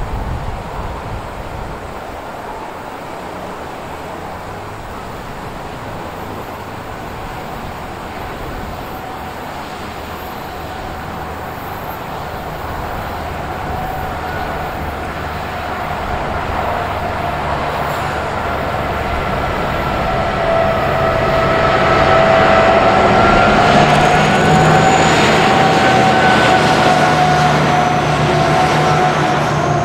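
Diesel-hauled train approaching and growing steadily louder, its engines droning low. A high, wavering whine joins about two-thirds of the way in.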